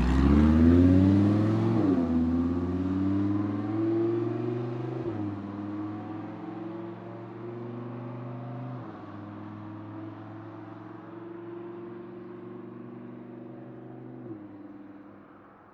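Audi R8 accelerating hard away through the gears: the engine note climbs, then drops at each of about four upshifts. It grows steadily fainter as the car recedes into the distance.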